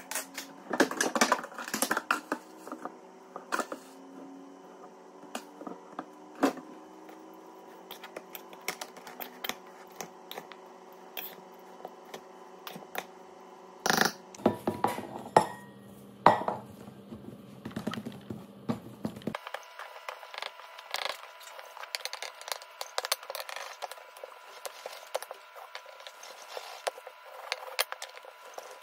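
A metal spoon clinks and scrapes in a stainless-steel bowl as grated raw pumpkin is seasoned and tossed, with a few sharper knocks against the rim. About two-thirds of the way in, this gives way to soft taps and rustles of thin dough being handled on a wooden rolling pin.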